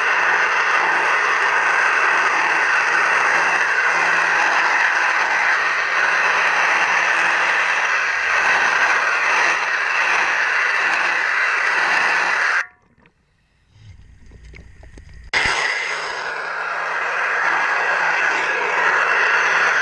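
Underwater propeller cleaning: steady scraping noise over a faint low hum. It cuts out abruptly a little past halfway, leaving only a low rumble for about three seconds, then starts again just as suddenly.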